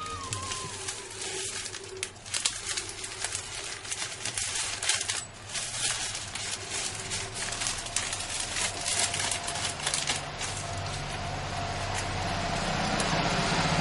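Thin plastic bag crinkling and rustling in the hands as a packet of food is handled, a dense run of short crackles. After about ten seconds the crackling gives way to a steady hiss with a low hum that grows slightly louder.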